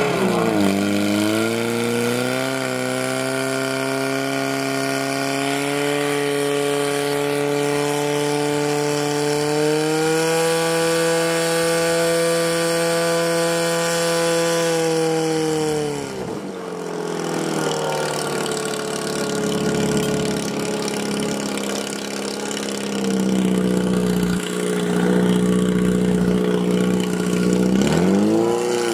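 Portable fire pump's engine running hard, driving water through the attack hoses to the targets. Its pitch climbs and holds high, drops sharply about halfway through, runs lower for a while, then revs up again near the end.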